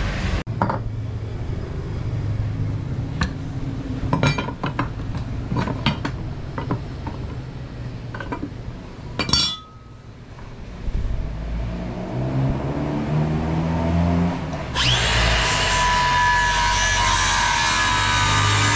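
Scattered knocks and clicks of wood and tools being handled, then, about four seconds from the end, a Makita cordless circular saw cutting through a clamped wooden board with a loud, dense rasp.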